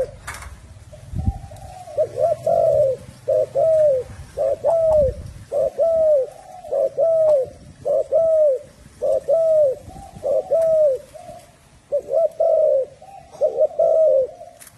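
Spotted dove cooing: a long run of short, falling coo notes, given in quick pairs and triplets about once a second, with a short pause a little after the middle.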